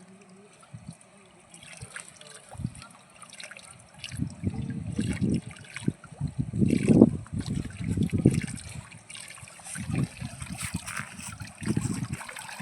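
Water sloshing and trickling, with irregular low rumbling surges from about four seconds in.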